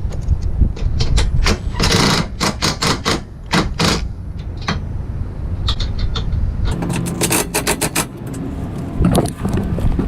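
Hand ratchet wrench clicking in short runs as the side-step mounting bracket bolts are tightened, with a dense quick run of clicks about seven seconds in, over a steady low rumble.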